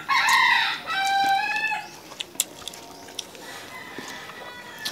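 A rooster crowing once, a loud call of about two seconds that rises and then holds a level pitch at the end.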